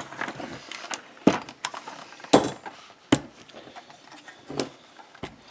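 Hand-handling knocks and clicks on a Husqvarna Rancher 455 chainsaw as its rear handle is worked loose from the body: a handful of sharp knocks, about a second apart.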